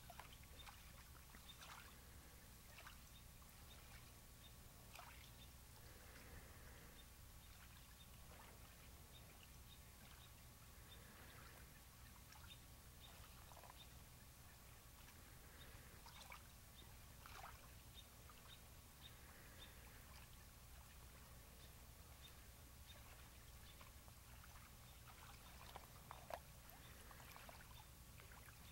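Near silence: a faint steady low hum with scattered soft clicks and small pops, slightly louder for a moment near the end.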